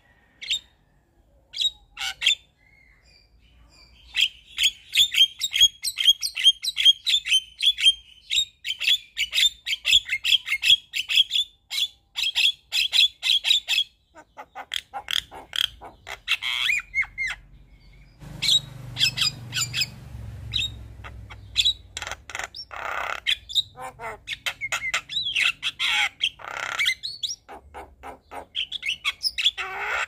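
Javan myna singing in a chattering stream: a long, fast run of repeated sharp notes, then a mix of squawks, whistles and rasping calls.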